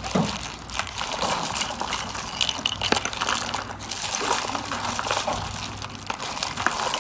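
Hands rummaging through a box of foil-wrapped chocolates, plastic toys and paper stars: continuous crinkling of the foil wrappers, with small clicks and taps as pieces knock together.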